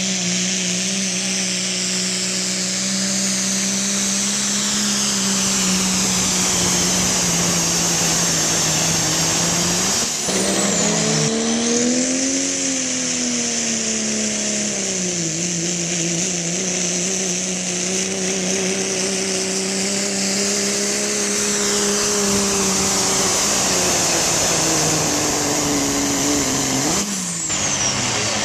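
Diesel pickup truck's engine running hard under full load while pulling a weight sled, with a high whine above the engine note. The engine pitch climbs and falls again about ten seconds in, and drops sharply near the end.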